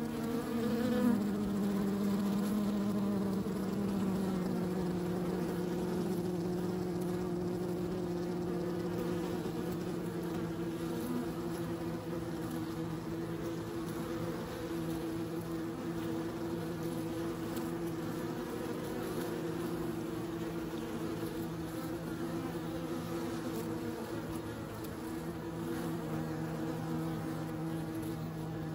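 Honeybees buzzing at a hive entrance: a steady drone of many bees' wings. About a second in, one bee passes close, louder, and its buzz slides down in pitch.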